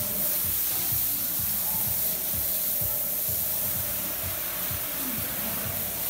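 Steady hiss of water spraying during an elephant wash, with irregular soft thumps.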